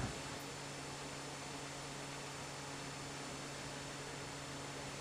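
Steady hiss with a low, even electrical hum underneath: room tone with nothing being worked.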